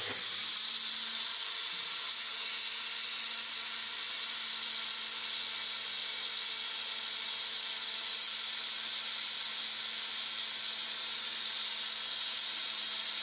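Electric mixer grinder (mixie) running at full speed, blending chopped chikoo (sapota) with chilled milk and brown sugar into a milkshake. A steady whir with a faint low hum underneath, starting right at the beginning.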